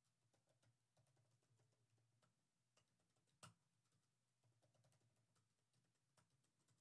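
Very faint computer keyboard typing, close to silence: scattered key clicks, with one sharper click about three and a half seconds in.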